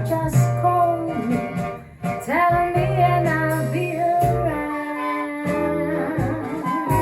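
Recorded music played back through Totem Model 1 hi-fi loudspeakers: a singing voice with gliding notes over guitar and a bass line, with a brief dip about two seconds in.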